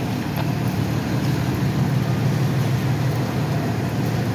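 Steady low rumble of vehicle engines and street traffic.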